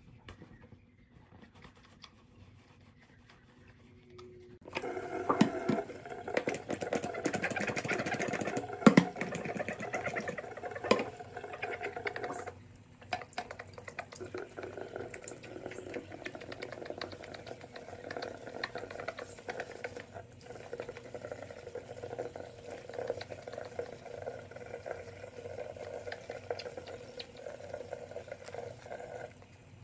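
Bathroom faucet running into the sink while a wet puppy is lathered and rinsed under it. The water starts suddenly about five seconds in, after a quieter stretch of towel rubbing, and drops a little in level about halfway through.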